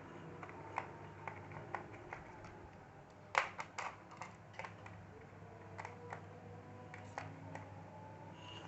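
Scattered small clicks and taps of a screwdriver working the tiny screws in a laptop's plastic case, with a quick run of sharper clicks about three and a half seconds in, over a low steady hum.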